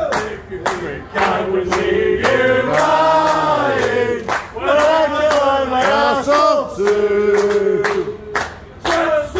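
A group of men singing together unaccompanied, holding long drawn-out notes, with hand claps keeping time at about two a second.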